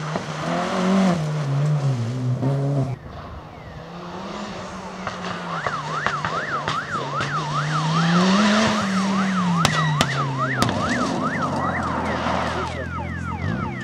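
A Peugeot 206 rally car's engine revving hard as it slides by on gravel, then an Audi coupé safety car's engine running through a turn while its siren wails rapidly up and down, about two cycles a second, for several seconds. A few sharp clicks sound near the end of the siren.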